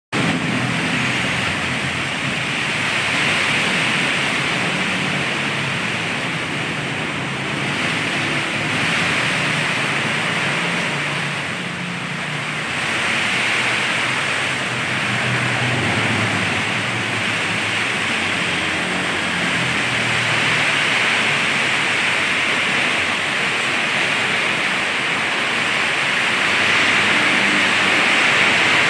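Heavy tropical rain pouring down steadily in a storm, a dense unbroken hiss, with a low rumble underneath that swells and fades.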